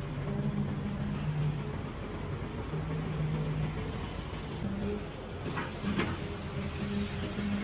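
Excavator's diesel engine running steadily, with a brief rattle about five to six seconds in.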